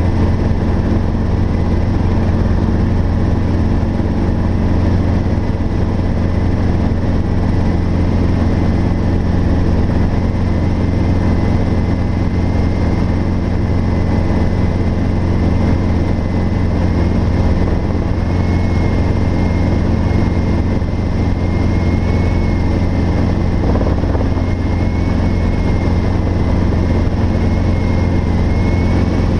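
Robinson R22 helicopter in flight, heard from inside the cabin: a steady drone of engine and rotor, with a thin high whine that drifts slightly up in pitch.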